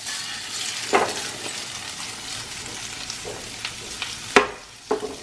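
Calico bass fillet sizzling as it fries in a very hot pan of olive oil and butter. The sizzle swells at the start. A few sharp knocks cut through it, the loudest about four seconds in.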